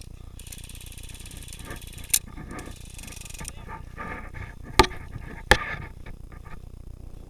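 Three single airsoft gun shots, sharp cracks about two, four and three-quarter, and five and a half seconds in, the last two the loudest. Before them a high, fast buzzing rattle lasts about three seconds.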